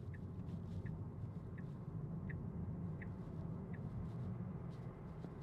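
Steady low tyre and road hum inside a 2024 Tesla Model 3 cabin on the move. Over it, a soft tick comes about every three-quarters of a second from the turn-signal indicator and stops about four seconds in.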